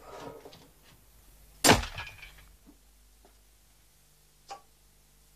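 A hammer blow slams a piston down a sealed home-made cylinder, giving one sharp bang with a short ringing tail as the squeezed fuel ignites from the heat of compression alone, the principle of the diesel engine. A few faint metallic clicks follow as the piston rod is handled.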